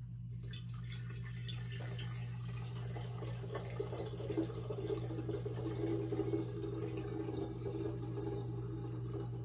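Water poured from a plastic gallon jug through a glass funnel into a round-bottom glass flask, splashing as the flask fills, over a steady low hum.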